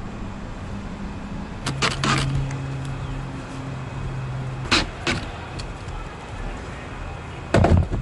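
A few knocks and clatters of things handled on a wooden work table, the loudest a heavy thump near the end as a cordless drill is set down, over a steady low hum.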